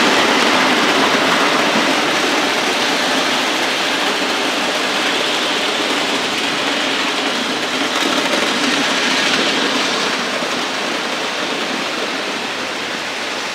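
Several OO gauge model trains, including Hornby Dublo three-rail locomotives, running round the layout's tracks: a steady whirring rush of motors and wheels on the rails, swelling briefly about eight seconds in.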